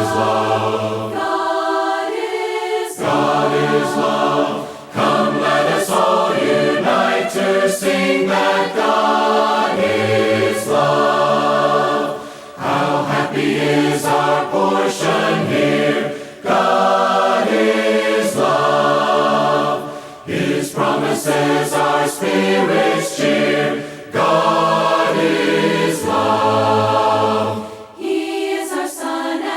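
Choir singing a hymn a cappella, several voices in harmony, in phrases of about four seconds with brief breaks between them.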